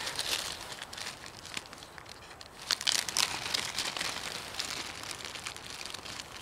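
Plastic packaging of solid fuel tablets crinkling and rustling as it is handled and opened, with a louder flurry of crackles about three seconds in.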